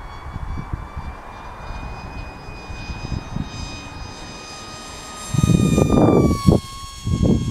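Electric WingWing Z84 flying wing's motor and propeller whining steadily at speed, the pitch creeping up, then dropping sharply about six seconds in as it makes a fast pass. Heavy rumbles of wind on the microphone come in near the end and are the loudest sound.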